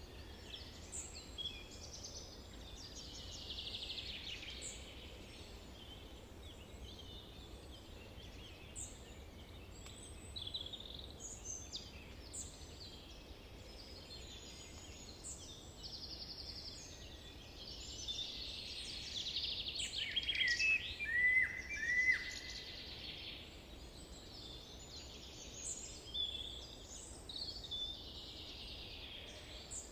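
Several wild songbirds singing and chirping at once, with many short overlapping high calls and trills. The singing gets busiest and loudest about two-thirds of the way through. A steady low background noise runs underneath.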